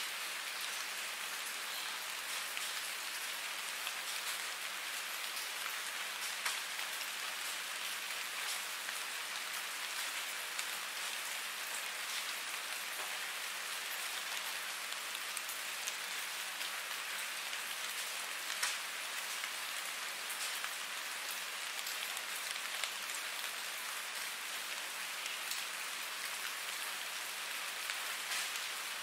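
Steady rain falling on a surface: an even hiss dotted with many small drop hits, holding the same strength throughout.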